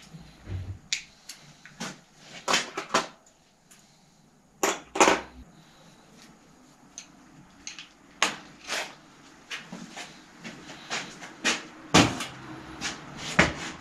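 Irregular metallic clanks and clicks of hand tools being worked on a bicycle in a repair stand and set down among other tools. The loudest knocks come as a pair about two and a half seconds in, another pair about five seconds in, and a single sharp one near the end.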